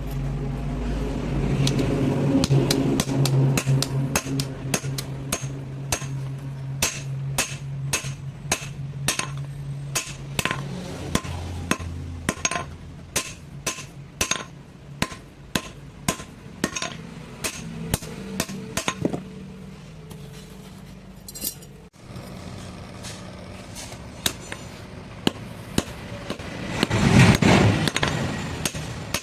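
A hammer striking metal over and over, about two blows a second, in the hand forming of a sheet-metal sieve. A steady low hum runs under the first half, and near the end a louder rushing noise swells briefly.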